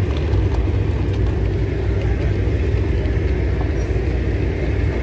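A steady low rumble that flutters unevenly, with a faint hiss above it.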